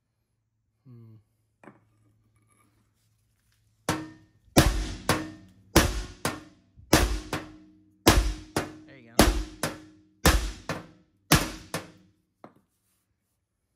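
Hammer blows on a steel bumper, about a dozen sharp strikes, mostly in quick pairs, each leaving the metal ringing briefly. The hammering starts about four seconds in and stops shortly before the end.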